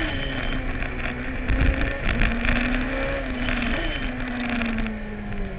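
Suzuki-engined racing sidecar heard from on board, its engine running hard: the pitch drops at a gear change just after the start, jumps briefly near four seconds, then falls steadily as it eases off. Wind noise sits underneath.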